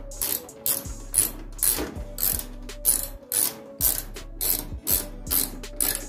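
Ratchet wrench clicking in quick back-and-forth strokes, about two bursts a second, as it tightens a fitting on the washer's water inlet.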